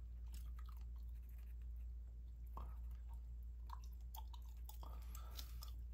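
Close-miked gum chewing: irregular wet mouth clicks and smacks over a steady low hum.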